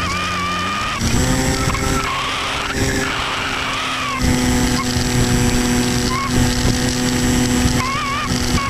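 Electric pusher motor and propeller of an Easystar 2 RC plane, heard from the onboard camera: a steady drone that rises in pitch about a second in as the motor speeds up, with wind noise on the microphone.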